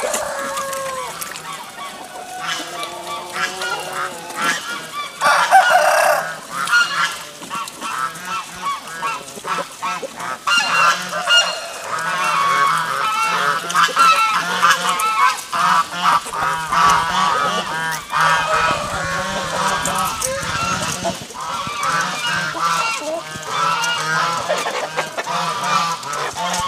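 Hungry pigs squealing and grunting while they jostle and eat at a feed trough, with chickens clucking among them. The calls come thick and irregular, with one loud squeal about five seconds in.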